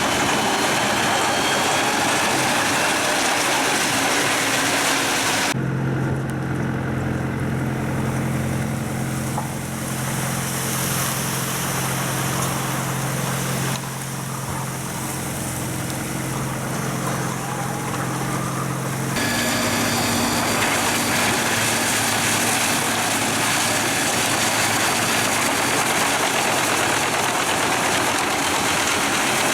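Pezzolato PTH 1400/1000 drum wood chipper driven by a 730 hp Scania truck engine, running loud and dense; about six seconds in the sound changes abruptly to a steady engine hum, and near twenty seconds it returns to the dense noisy running.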